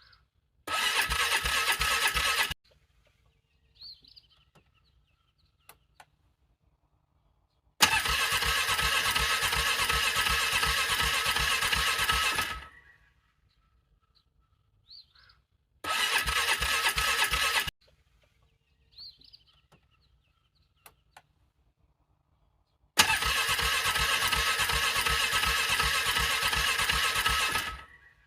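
Engine being cranked over by its starter motor in four attempts, two short and two longer, each a steady pulsing churn that does not catch and start. It is a hard cold-weather start in freezing conditions.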